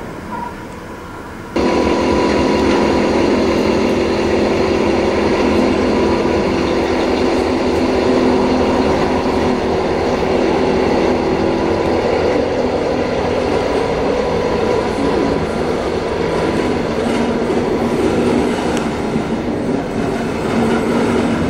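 Freight train with a class 295 diesel locomotive moving on the station tracks: a loud, steady rail rumble with the locomotive running, setting in abruptly about one and a half seconds in.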